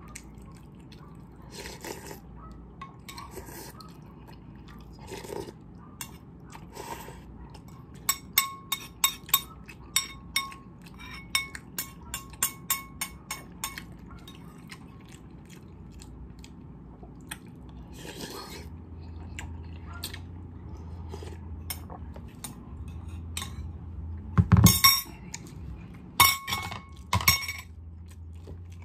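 A metal spoon clinking and scraping against a ceramic bowl while the last of the noodle soup is scooped out: quick runs of light clinks in the middle, then a few louder clinks near the end.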